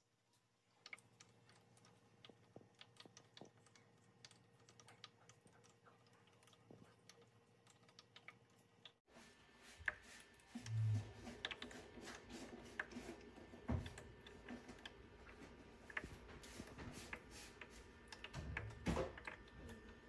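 Near silence for about the first nine seconds, then a Honeywell HUL520 Mistmate ultrasonic cool-mist humidifier running, giving faint, irregular ticks and pops with a soft low thud about eleven seconds in.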